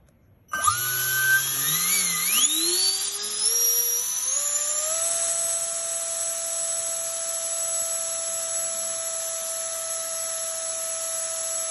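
A 90 mm all-metal electric ducted fan with a 1920 kV motor starts about half a second in. Its whine rises in steps over about four seconds, then holds at a steady high pitch while the fan pushes about 3 kg of thrust.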